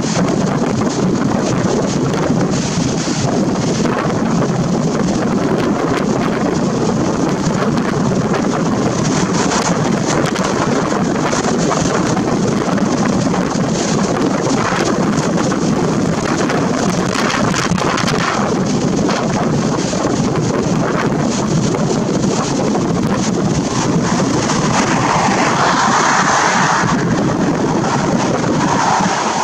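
Gale-force storm wind blasting across the microphone: a loud, continuous rush of wind noise.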